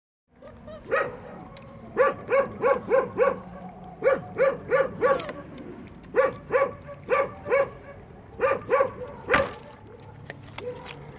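A dog barking in quick runs of four or five barks, about three a second, with short pauses between the runs.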